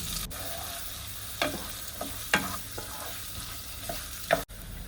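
Chopped onion sizzling steadily in hot oil in a pan, stirred, with a few short sharp scrapes of the stirring utensil against the pan.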